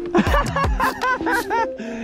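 Background music with a sung vocal line over sustained tones.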